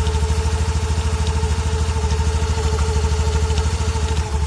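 Honda Activa 125 scooter's single-cylinder engine idling with a knocking noise, a fault that shows on the first start of the day or after a long rest and that three services have not cured.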